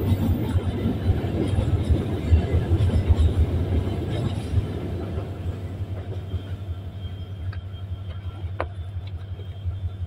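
Coal-train hopper wagons rolling past on the adjacent track: a low rumble with irregular knocking of wheels on the rails. It fades after about five to six seconds as the last wagons go by.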